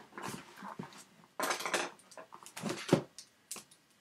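Packing tape on a shipping box being picked at and pulled, giving several short bursts of scraping, rasping and tearing noise.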